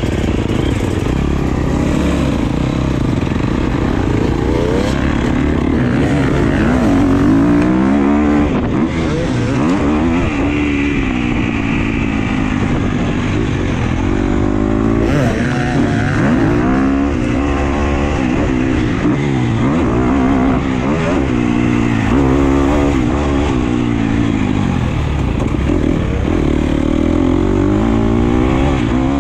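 A 2017 Husqvarna FC250 motocross bike's four-stroke single-cylinder engine being ridden hard, its pitch climbing and dropping again and again as the throttle is opened and shut and it runs up through the gears.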